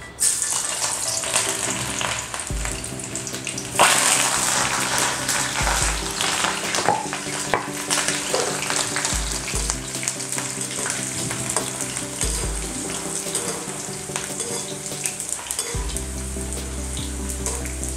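Garlic, green chillies and curry leaves sizzling in hot oil in a steel kadhai. The sizzle starts suddenly as they drop into the oil and gets louder about four seconds in. Near the end a slotted metal spoon stirs them.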